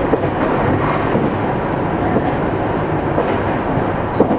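Meitetsu 300-series electric train, set 317F, running at speed between stations, heard from inside the car: a steady rumble of wheels and motors with a few rail-joint clicks, the sharpest near the end.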